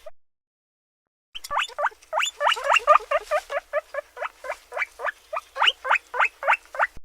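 Guinea pig squeaking in a rapid series of short, pitched calls, about five a second, with a dead-silent break of about a second just after the start.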